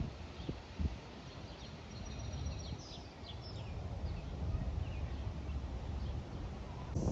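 Low, distant rumble of an airliner in flight, slowly growing louder, with a few high bird chirps about three seconds in.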